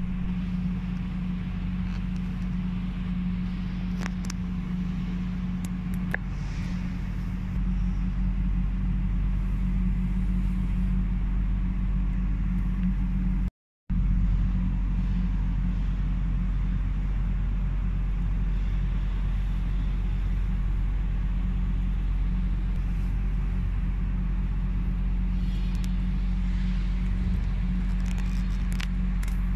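A steady low machine drone, like a running engine or motor, that gets a little louder about a quarter of the way in and cuts out for a moment just before the middle, with a few faint clicks over it.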